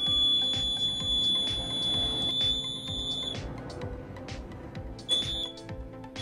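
Battery-powered water-level alarm buzzer sounding a steady high-pitched tone while its two probes touch the water, the sign that the water has reached the probes and closed the circuit. The tone stops about three and a half seconds in, as the probes are lifted clear of the water, then sounds briefly twice more near the end as they touch the water again.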